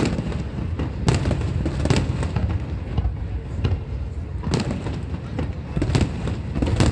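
Fireworks display: several sharp bangs at irregular intervals over a continuous low rumble of further bursts.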